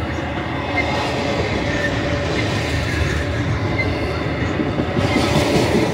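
Intermodal freight cars of a BNSF train, loaded with highway trailers and containers, rolling past: a steady rumble of steel wheels on rail with a faint thin tone running through it, a little louder in the last second.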